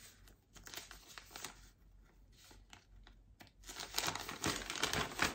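A folded paper note being unfolded by hand: paper crinkling and rustling, faint at first and louder over the last second and a half.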